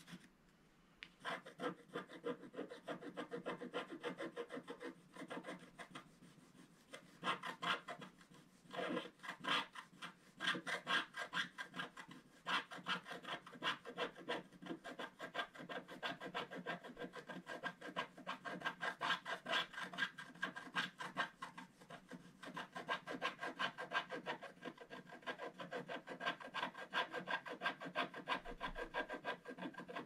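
Wooden scratch stick scraping the black coating off a scratch-art sheet in rapid short strokes, a dry rasping scratch that starts about a second in and eases off briefly a few seconds later.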